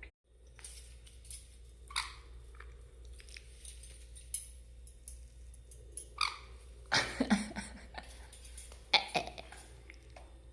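Sun conure making a few short, soft croaking calls, spaced a few seconds apart.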